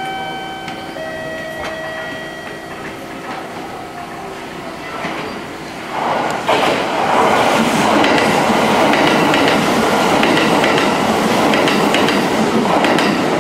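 A Kintetsu limited express train passes through the station at speed. Its noise rises sharply about six seconds in and becomes a loud, steady rush with wheel clatter. Before it, two steady held tones sound in the first couple of seconds.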